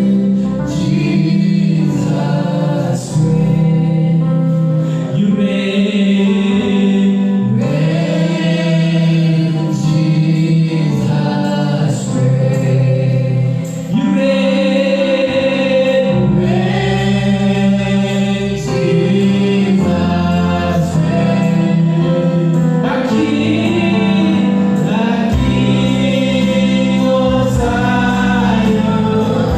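A group of voices singing a gospel worship song over held low instrumental chords.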